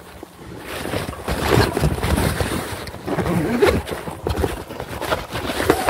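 Irregular rustling and knocks as a chest bag and gear are handled, with wind buffeting the microphone.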